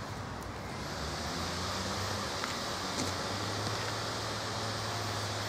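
Steady rumble of distant road traffic with a low, even engine hum underneath.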